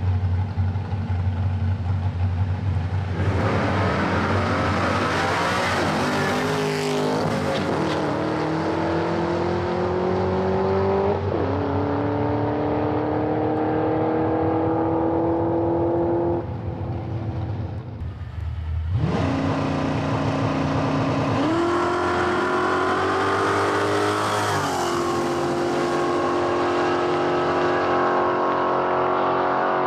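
Drag-racing street cars' engines, among them Holden Commodores: engines idling at the line, then a full-throttle launch about three seconds in, the engine pitch climbing and dropping at each gear change. After a short lull a second pass launches, again climbing in steps through its gear changes.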